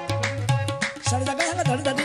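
Qawwali music: tabla playing a steady rhythm under held drone tones and a bending melodic line.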